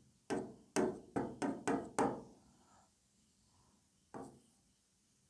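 Stylus tip tapping and knocking against the glass of an interactive touch-screen board while figures are written: about seven quick taps in the first two seconds, then one more a little after four seconds.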